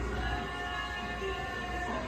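Background music with held notes over a low bass.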